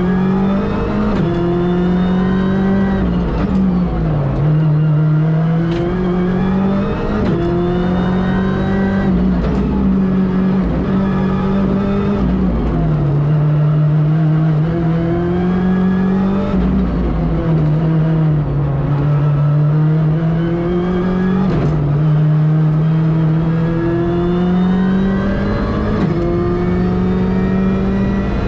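Ford Fiesta R5 rally car's turbocharged four-cylinder engine at full stage pace. Its note climbs under acceleration and drops back again and again as it shifts and brakes, with a few sharp cracks along the way.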